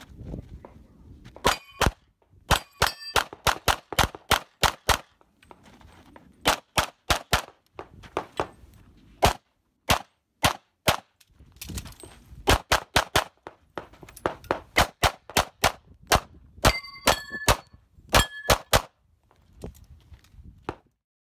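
Pistol shots fired in fast pairs and strings, with short pauses between groups as the shooter moves between firing positions. Several hits are followed by the ringing clang of steel targets, most clearly about a second and a half in, around three seconds in, and in the group near the end.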